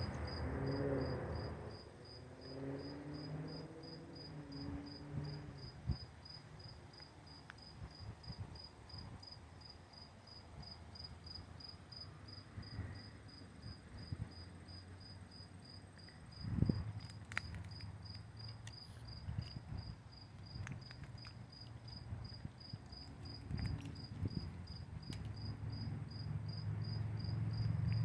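A cricket chirping steadily, a high, evenly spaced chirp about twice a second, over faint outdoor background. A single soft thump comes about sixteen seconds in.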